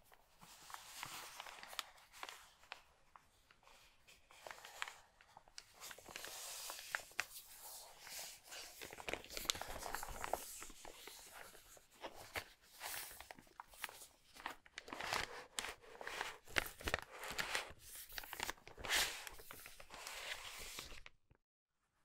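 A thin biodegradable film bag crinkling and rustling as it is handled, with many sharp crackles. Near the end the keyboard is slid out of it. The sound cuts off abruptly about a second before the end.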